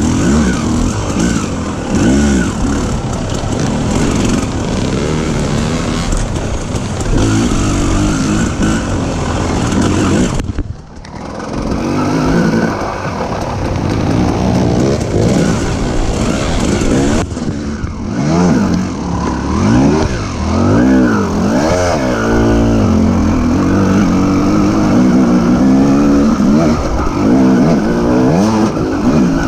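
Off-road dirt bike engine revving up and down through the gears, its note rising and falling again and again. The sound drops away briefly about eleven seconds in.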